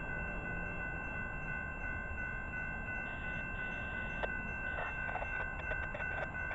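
Railroad crossing warning bell ringing steadily as the crossing activates, warning of an approaching train. A sharp click sounds about four seconds in.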